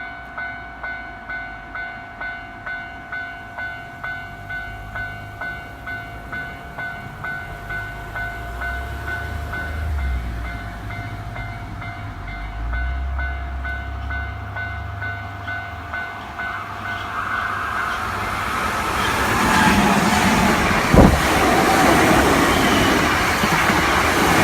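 Japanese level-crossing warning bell ringing, an electronic ding repeating about one and a half times a second. About two-thirds through, the noise of an approaching Hankyu train rises and covers the bell as the train passes over the crossing, with one sharp knock near the end.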